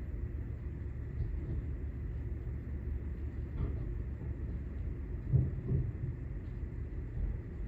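Steady low rumble of an automatic soft-touch car wash heard from inside the car's cabin, with two dull thumps in quick succession a little past halfway.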